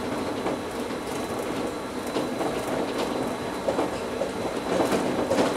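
Bombardier CITYFLO 650 rubber-tyred automated metro car running along an elevated guideway, heard from inside the car: a steady running rumble with scattered clicks, growing a little louder and busier near the end.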